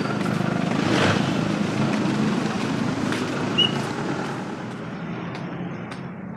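Motor vehicle engine and road noise running steadily, growing fainter over the last couple of seconds.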